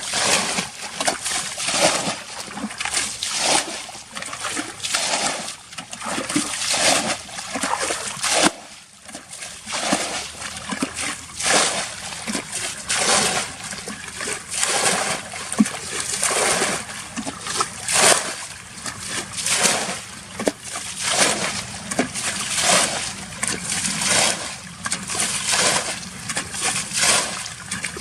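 Water splashing and sloshing over and over in quick, uneven strokes, as when shallow water is churned while fish are caught by hand, with a brief lull about nine seconds in.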